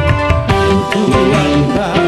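Live dangdut band music: tabla-like hand drums tapping a quick rhythm under electric guitars, with a wavering melody line over the top.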